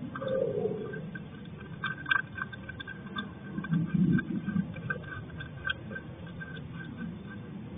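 Hedgehog chewing and crunching dry food from a glass dish, with irregular small ticks and clicks. There is a brief low tone near the start and a louder low rumble about four seconds in.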